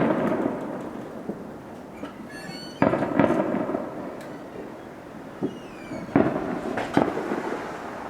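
New Year's Eve fireworks going off around the neighbourhood: a loud bang at the start, another about three seconds in, and two more about two-thirds of the way through. Whistling rockets can be heard in between.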